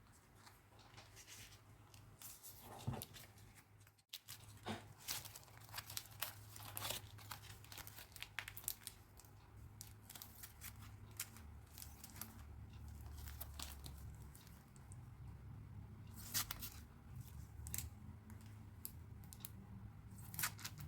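Packaging being torn open and crinkled by hand: a run of short, sharp tearing and rustling sounds, with a brief break about four seconds in.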